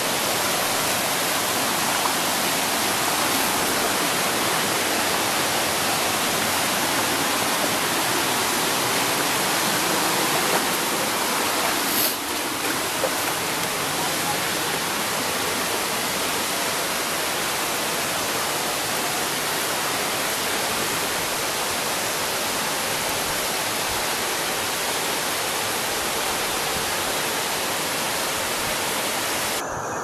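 Steady rushing of a waterfall, with a brief knock about twelve seconds in.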